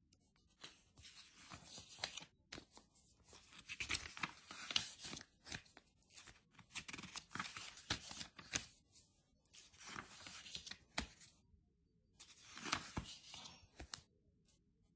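Glossy paper pages of a printed catalogue being turned and smoothed by hand: a series of short rustles with brief pauses between them.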